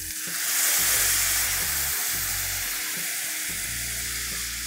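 Chicken stock ladled into a hot pan of browned chicken and mushrooms, sizzling as the liquid hits the hot metal. The sizzle swells about half a second in and then slowly dies down.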